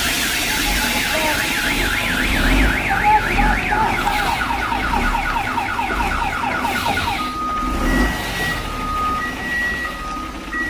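Electronic siren-type horn, sounding as a fast warble for about seven seconds, then switching to a slower two-tone high-low alternation. Underneath it runs the low rumble of a heavy diesel truck's engine.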